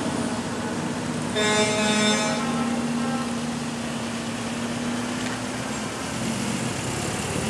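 Cars in a slow convoy driving past at close range, engines running steadily, with a car horn sounding once for under a second about a second and a half in.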